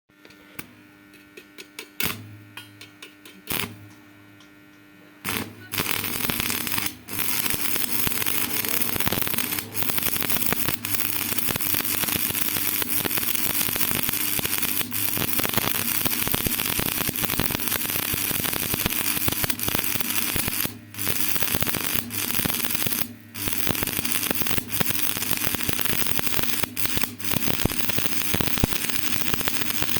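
Stick welding arc on heavy steel C-channel: two short arc strikes in the first few seconds, then from about five seconds in a steady crackling and sizzling arc with the welder's hum underneath, cutting out briefly a few times.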